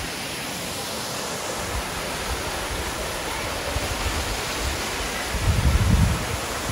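Steady rushing of Etiwanda Falls, a small waterfall spilling over rock. A short low rumble on the microphone comes about five and a half seconds in.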